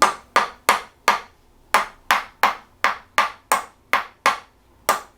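Chiropractic adjusting hammer tapping on the patient in a quick run, about three sharp taps a second, with two short pauses.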